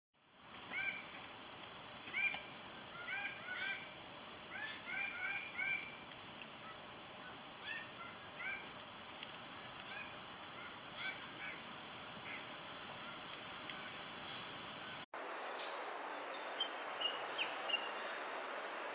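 Red birds-of-paradise calling, a chorus of short, harsh, honking notes repeated in quick runs, over a steady high insect drone. About 15 seconds in, the sound cuts to a quieter forest background with a few faint high whistles.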